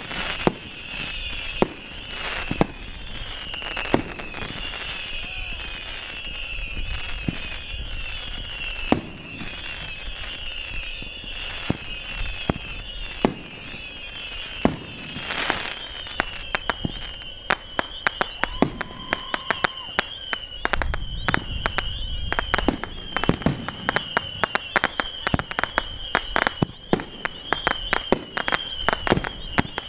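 Fireworks going off close by: a steady run of sharp pops and crackles that comes much faster and denser in the second half.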